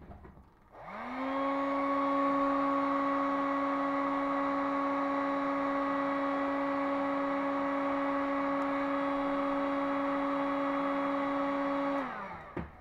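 Electric heat gun switched on about a second in, its fan motor spinning up to a steady whine over a rush of hot air, then switched off near the end and winding down with a falling pitch.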